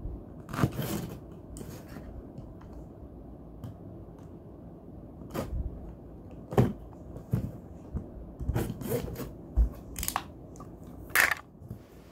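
A cardboard shipping box being opened: a utility knife slitting the packing tape, and the cardboard flaps scraping and crackling as they are pried up. The noises come in irregular sharp crackles and scrapes, with the loudest ones at about half a second in, in the middle, and near the end.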